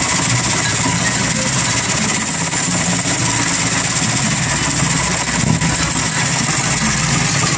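Power drill running steadily as it bores into a wooden tabletop, its motor giving a high whine.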